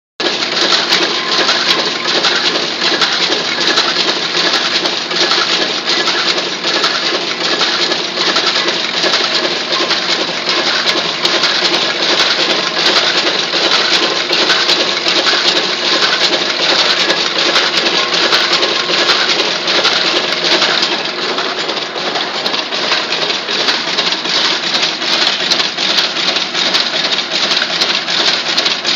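Picanol PGW weaving looms running in a weaving shed: a loud, steady, dense clatter of rapid mechanical clicks and knocks.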